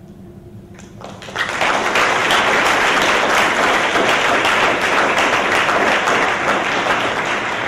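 Audience applause: many people clapping, starting about a second in and then holding steady.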